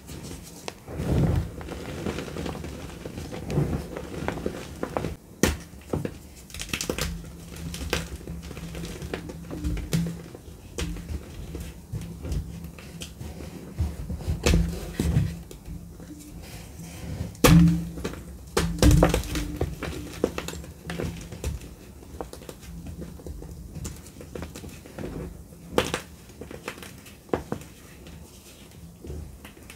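Blocks of dry gym chalk being crushed and crumbled between bare hands, giving irregular dry crunches and soft powdery thuds. The sharpest crunches come a little past halfway.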